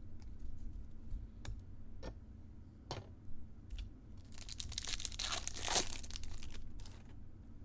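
A few light clicks, then a trading card pack's wrapper being torn open: a rustling, crinkling tear lasting about two seconds, starting just past the middle.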